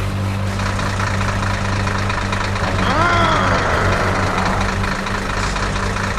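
Steady, rumbling idle of a cartoon truck engine sound effect. About three seconds in comes a short pitched cry that rises briefly and then falls.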